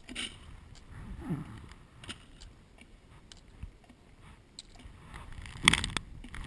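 Spent brass rifle cartridge cases being picked up from grass and dropped into a cloth ball cap: scattered light clicks and clinks over rustling, with one louder clatter near the end.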